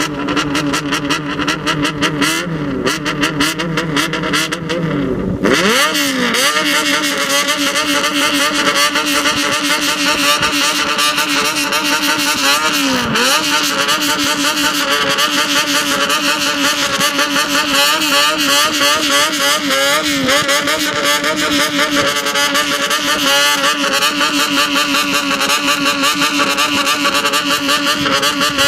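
Engine exhaust through a 50.8 mm megaphone-type aftermarket silencer, running at low revs. About five seconds in it changes abruptly to a steady mid-range speed that is louder and brighter, with a few small rises and falls in pitch.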